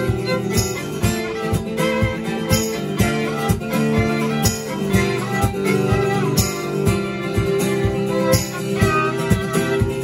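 Live acoustic instrumental: violin playing the lead over strummed acoustic guitar and a steady cajon beat, with a bright jingling accent about every two seconds.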